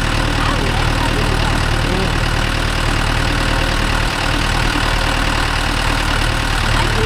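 Mahindra Yuvo Tech+ 585 tractor's four-cylinder diesel engine running at a steady, even speed.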